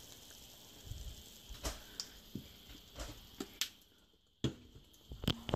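Light, scattered clicks and taps from a pepper container being shaken over a frying egg. The sound cuts out completely for a moment a little after four seconds in.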